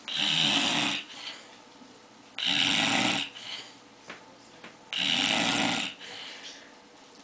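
Snoring: three loud snores, each about a second long and about two and a half seconds apart, with faint quieter breathing sounds between them.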